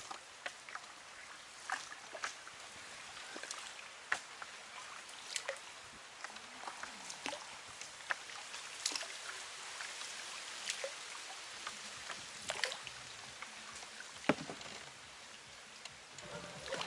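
Paddle strokes in the water alongside a round bamboo coracle: small splashes and drips over a faint steady hiss, broken by irregular sharp clicks and knocks, one louder knock near the end.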